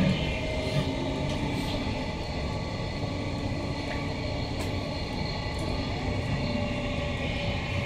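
Interior running noise of a Queensland Rail NGR electric multiple unit, built by Bombardier, travelling at speed: a steady rumble of wheels on rail with a few faint steady tones over it.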